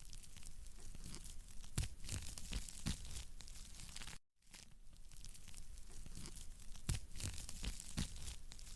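Wood fire in a fireplace crackling steadily, with a few sharper pops. The sound cuts out briefly about four seconds in, then resumes.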